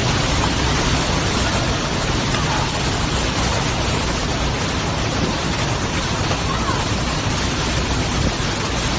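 Storm noise: heavy rain and wind making a steady, loud rushing sound, with a fluctuating low rumble underneath.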